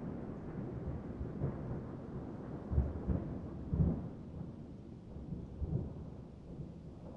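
Rolling thunder rumbling in a thunderstorm, deep and low, swelling in a few rumbles about three, four and six seconds in and then slowly fading, with rain faintly underneath.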